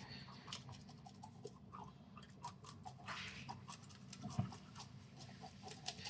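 A spoon scraping scales off a whole fish: quick, irregular clicks and short scrapes, faint, over a low steady hum.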